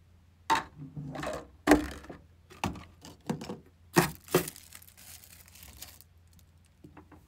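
Disposable plastic takeout containers, lids and a napkin being handled and stacked on a table: a run of crinkles, clacks and taps, busiest in the first four and a half seconds, then only faint ticks.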